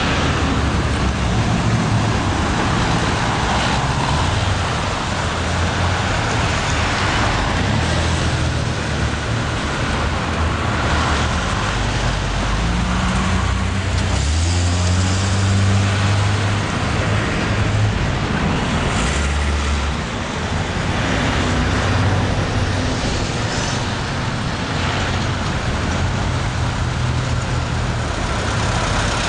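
City street traffic: cars and trucks passing, a steady road noise with a deeper engine rumble from a heavy vehicle swelling about halfway through.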